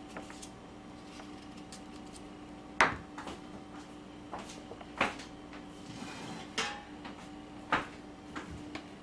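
Kitchen clatter of dishes and utensils being handled and set down on a counter: about five sharp knocks and clinks, the loudest about three seconds in, over a steady low hum.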